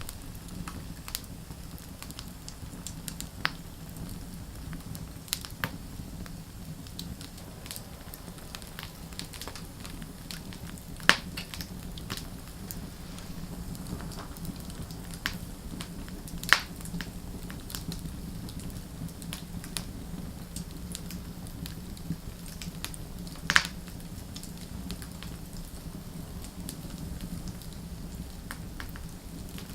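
Wood fire burning: a steady low rustle with scattered crackles, and a few sharp, louder pops of burning wood, the strongest about 11, 16 and 23 seconds in.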